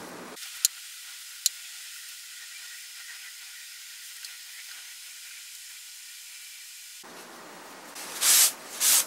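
A cloth rubbed briskly over the wooden drawer in quick back-and-forth strokes, about two a second, starting near the end. Before that there is only a thin steady hiss, with two sharp clicks under a second and a half in.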